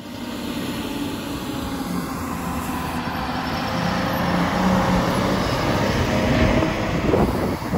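Diesel engine of a Mercedes-Benz Unimog off-road shuttle bus running as it drives past on a gravel track. It grows louder as the bus draws close, then eases off slightly near the end as it moves away.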